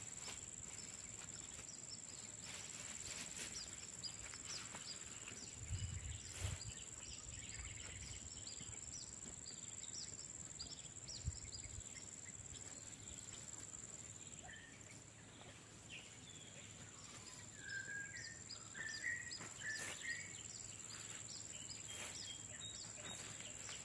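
Quiet outdoor ambience: a steady high-pitched insect drone with many small repeated chirps, and a few bird chirps about three-quarters of the way in. A few soft low thumps sound early on as the plants are handled.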